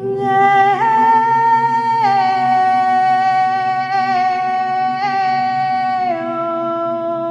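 A woman's voice singing long, wordless held notes that step slowly in pitch, dropping lower near the end, over a steady low drone. The voice echoes in the stone King's Chamber.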